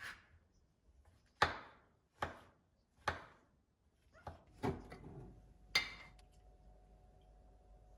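Kitchen handling sounds: a string of separate sharp knocks and clacks, roughly one a second, as utensils and dishes are set down or worked. From about five seconds in, a low steady hum with a faint whine sets in, as of an appliance running.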